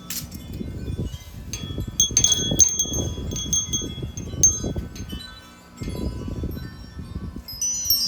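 Wind chimes ringing in strong gusts, with the wind buffeting the microphone in a low rumble. A few clear high strikes ring out about two to four seconds in, and a burst of many chimes near the end as a gust hits.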